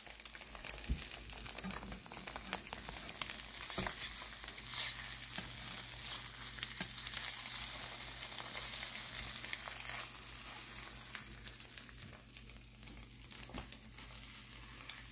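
Eggs frying in a nonstick pan: a steady sizzle with scattered small pops and crackles.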